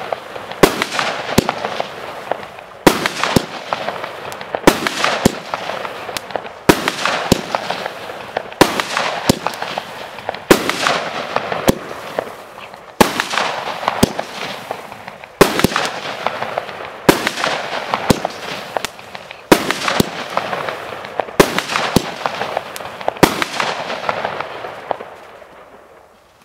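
Planet Fireworks Super 4 firework cake firing shot after shot, about one every two seconds. Each shot is a sharp bang followed by a dense crackle that fades. The last crackle dies away near the end.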